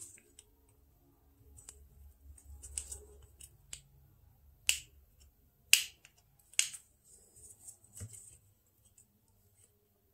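Sharp plastic clicks and snaps as a thin metal pry tool works the clip-fastened plastic frame of a disposable vape apart: about seven separate clicks, the loudest about five to six seconds in.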